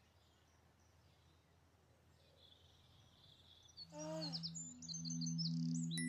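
Faint birdsong chirping over quiet background hiss; about four seconds in, a soft held two-note low drone starts, with quick rising bird chirps over it.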